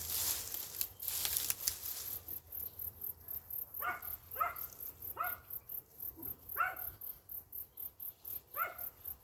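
A dog barking five times in short, separate barks, each dropping a little in pitch, starting about four seconds in. Before that, a brief rustle of digging in dry soil.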